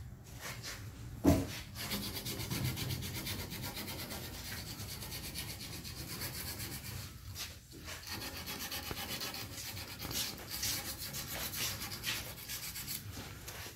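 Continuous rubbing, scraping noise, with a single sharp knock about a second in.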